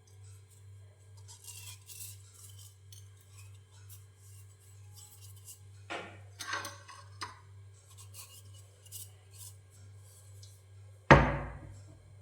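Kitchen utensils and dishes clinking and scraping in short scattered bursts, with a louder cluster midway and one sharp knock with a short ring near the end, over a steady low hum.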